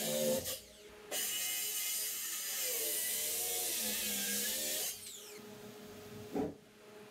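Handheld power tool cutting into wooden 2x4 framing in two runs, the motor's pitch bending as it loads; about five seconds in it stops and winds down with a falling whine.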